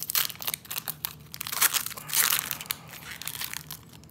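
Foil wrapper of a Pokémon TCG booster pack crinkling and crackling as it is handled and crumpled, in irregular crackles that are densest about two seconds in.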